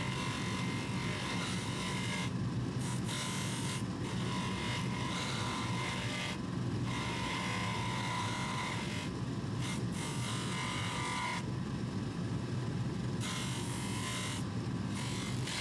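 Bench polishing motor running steadily with a cloth buffing wheel as a watchcase part is pressed against it. The high rubbing hiss drops out briefly several times, the longest gap about twelve seconds in.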